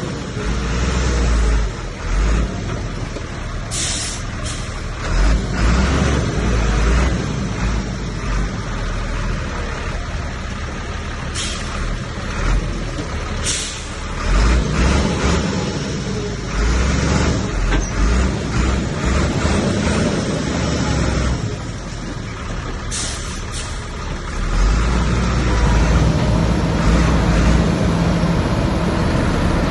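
Komatsu bulldozer's diesel engine working under load as it pushes dirt and stone, its level swelling and easing, and getting louder near the end. Four short, high hisses cut through it.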